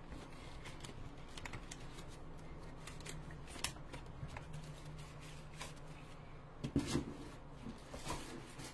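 Clear plastic packaging of a rubber stamp set crinkling and rustling as it is handled, with scattered light clicks and a brief louder flurry about seven seconds in, over a faint steady hum.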